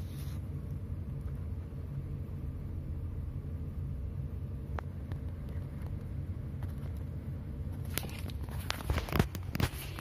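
Steady low rumble, with a single sharp click about halfway through and a cluster of clicks and knocks near the end.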